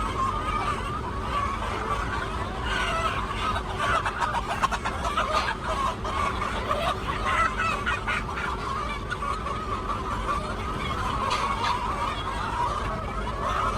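Chickens clucking: a flock's steady chatter of many short overlapping calls.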